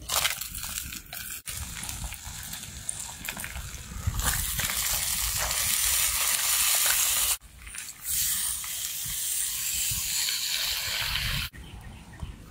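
Crayfish and chillies sizzling in a hot stone pot over a wood fire, heard as a dense hiss. It comes in several short edited stretches with abrupt cuts between them, loudest a few seconds in.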